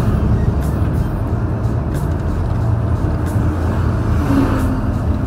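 Large truck's stock diesel engine running steadily, heard from the cab through a slightly open window, with road and tyre noise.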